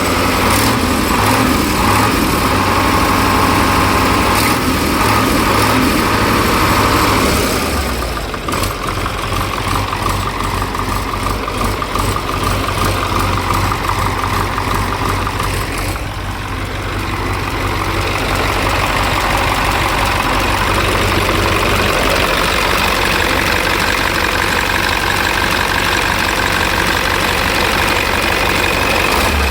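KamAZ 740 V8 diesel engine running steadily. Its sound changes about eight seconds in and again around sixteen seconds.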